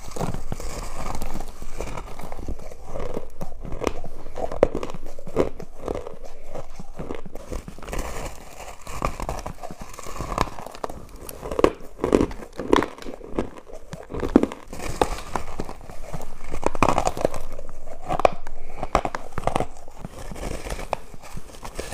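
Crushed ice being bitten and chewed: a dense run of sharp, crackling crunches.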